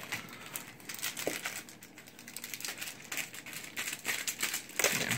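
Yu-Gi-Oh booster packs' foil wrappers crinkling and clicking against each other as they are shuffled by hand, a little louder near the end.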